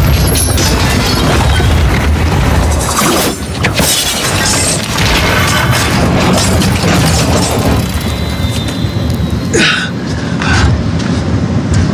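Film sound of a helicopter crashing and tumbling onto a rooftop helipad: heavy metal crashes and booms, with several sharp impacts, over loud film score music.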